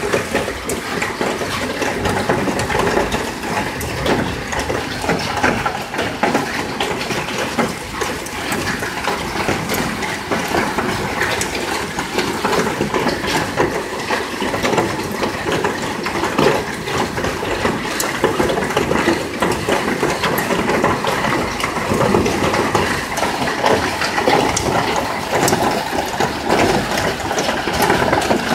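Hailstorm: hail and rain pelting down steadily, a dense clatter of many small impacts over the hiss of the downpour.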